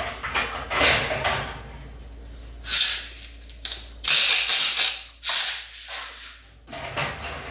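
Hand-twisted seasoning grinder being turned over a plate of steak, in several short rasping grinding bursts. A pull-out kitchen drawer is opened at the start and shut near the end.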